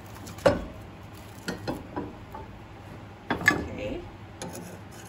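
Sharp metal clanks and clicks as a cast-metal tortilla press is opened and a metal slotted spoon lifts the flattened plantain off it. Two knocks stand out, about half a second in and just past three seconds, with lighter clicks between.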